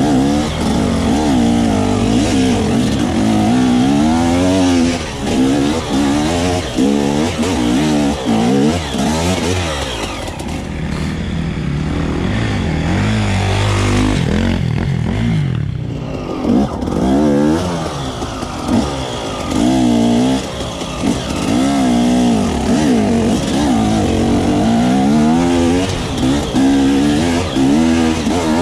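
Enduro dirt bike engine revving up and down again and again under changing throttle, close to the microphone, dropping to a quieter, lower note for a few seconds near the middle.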